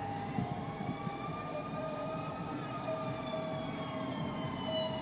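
Fire engine siren wailing in one slow cycle, its pitch rising for the first half and then falling away, over a low rumble of vehicle engines.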